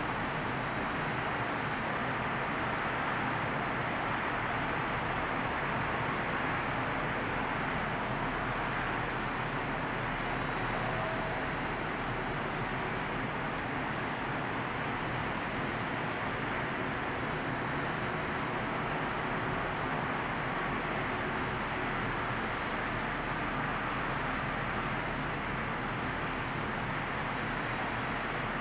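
Steady, even hum of distant city traffic, with no distinct events.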